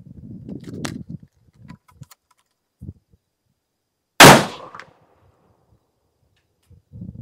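Civil War percussion rifle musket firing about four seconds in: one loud, sudden report with a ringing tail of about half a second. A second loud shot follows right at the end. Brief handling clatter is heard at the start.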